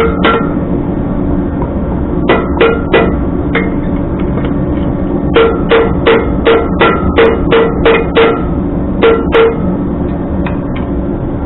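Hammer blows on a steel mounting bracket, each a sharp ringing clank: a few scattered strikes, then a quick run of about ten at roughly three a second, then two more near the end.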